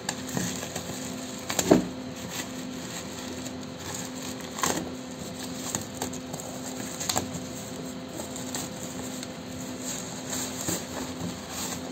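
Plastic and paper parcel wrapping being torn open and handled: rustling and crinkling, with sharper crackles about 2 s in and again around 5 and 7 s.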